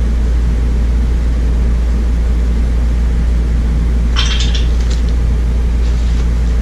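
A deep, steady hum throughout, with a brief rustle of a paper picture book being handled about four seconds in.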